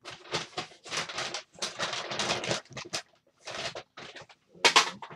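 Rummaging through a plastic tub of cables and game controllers: irregular rustling and clattering of plastic and cords, with a louder clack near the end.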